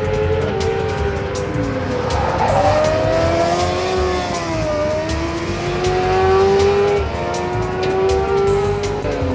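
Racing sidecar outfits' engines running hard as they pass, the pitch falling and rising again about five seconds in as they slow for a corner and pull away.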